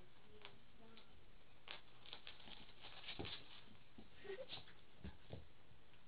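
A Gordon setter mix and a miniature schnauzer play-wrestling on a wooden floor: claws clicking and scrabbling on the boards, with a few dull bumps of bodies, busiest from about two seconds in.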